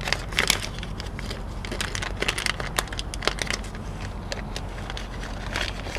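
Hands handling small plastic parts, an LED side-marker bulb and its housing: a run of light, irregular clicks and crackles over a low steady hum.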